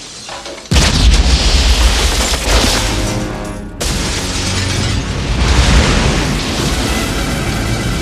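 A sudden loud explosion about a second in as the giant aquarium bursts, followed by a sustained rush of water and shattering glass pouring out, with the film score playing underneath.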